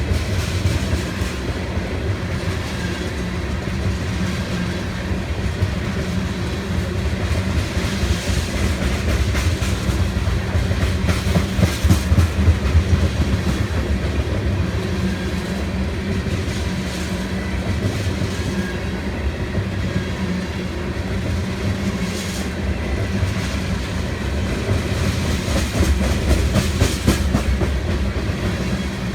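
Loaded ethanol tank cars of a freight train rolling past, wheels clicking over rail joints over a steady low rumble, with louder passages about twelve seconds in and again near the end.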